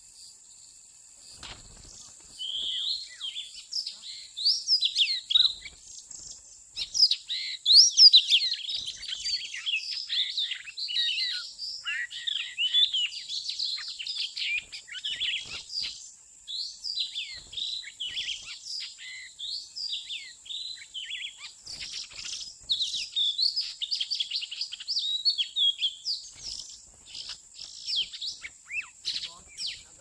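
Oriental magpie-robin singing a rapid, varied song of whistled and chattering notes, starting a couple of seconds in, over a steady high insect buzz.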